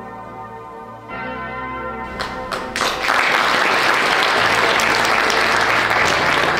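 Bell-like background music with steady held tones, then an audience bursts into applause about three seconds in, which carries on loudly.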